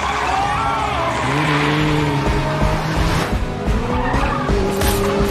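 Car-chase soundtrack: vehicle tyres squealing, with music of sustained low notes coming in about a second in.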